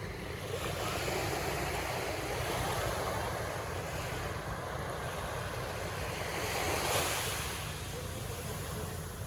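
Sea surf washing onto a beach, a steady rush that swells and eases, loudest about seven seconds in as a wave breaks, with wind rumbling on the microphone.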